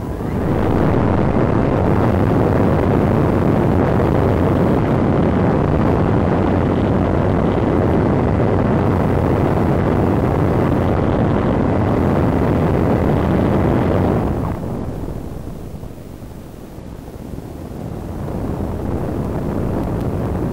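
Airflow rushing over the onboard microphone of a Multiplex Cularis RC glider in flight, a loud steady roar of wind noise that drops off about 14 seconds in, then builds again near the end as the airspeed picks up.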